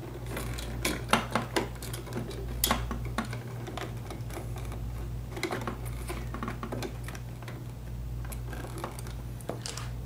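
Irregular clicks, taps and scrapes of stiff electrical wires and a plastic light switch being pushed and folded into a wall electrical box, over a steady low hum.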